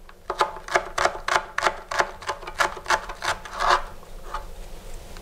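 Kitchen knife slicing a half head of cabbage into thin shreds on a cutting board, quick even strokes about five a second, each a short crisp crunch. The strokes stop about four seconds in.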